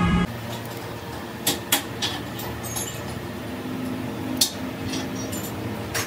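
Metal lathe workshop: a steady machine hum, broken by a few sharp metal clinks from hand tools, a vernier caliper and a file, being handled on the lathe, twice close together about a second and a half in and again later.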